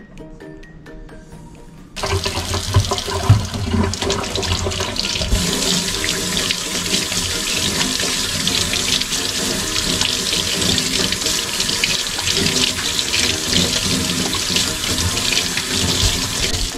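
Kitchen faucet running into a stainless steel sink as hands are rubbed and rinsed under the stream. The water starts abruptly about two seconds in and then runs steadily.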